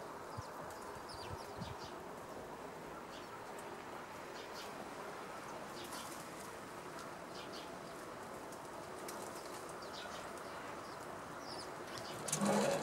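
Short, scattered high chirps of house sparrows over a steady low background noise, with a brief louder burst near the end.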